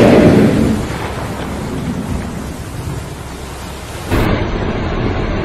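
A large baleen whale exhaling through its blowhole: a loud rushing whoosh that fades away within the first second or so, leaving a low rumble of water and air. About four seconds in it gives way to a different steady rumbling noise.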